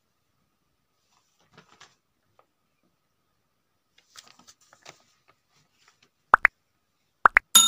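Like-and-subscribe animation sound effects: two pairs of short rising pops about a second apart, then a bell ding that starts right at the end and rings on. Before them, only a few faint rustles.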